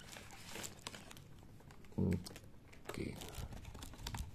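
Cardboard box flaps and clear plastic wrap rustling and crinkling as a 7x7 cube puzzle and its paper leaflet are pulled out of the packaging, with scattered small clicks and one short low thump about two seconds in.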